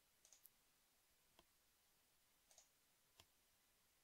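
Faint computer mouse clicks, a handful of them scattered through near silence.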